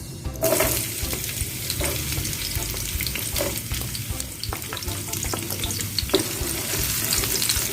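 Shallots, garlic and bird's-eye chilies sizzling as they are stir-fried in hot oil, a crackling hiss that sets in about half a second in, with occasional soft knocks of the stirring.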